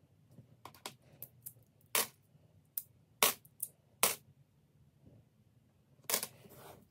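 Australian $1 coins clinking as they are handled and sorted: a run of separate sharp metallic clicks, then a short rattle of coins near the end.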